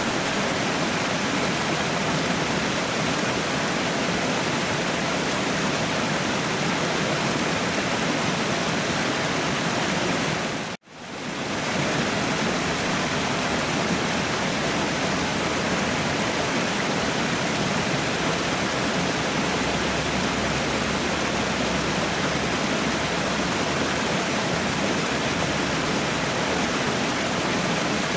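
Steady, even rushing of a waterfall. About eleven seconds in it cuts out for an instant and fades back up within a second.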